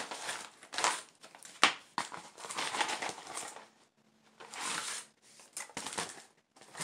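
Crinkling and rustling of a silver metallic bubble mailer being handled after it has been cut open, with a few sharp crackles in the first two seconds.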